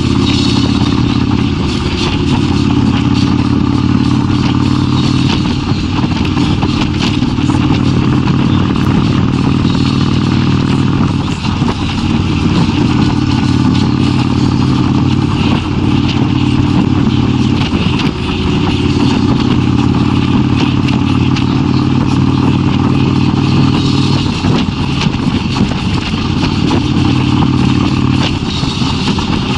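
Kawasaki Vulcan 1600's V-twin engine running steadily under way. Its pitch steps up or down a few times as the throttle or gear changes, over a steady rush of higher noise.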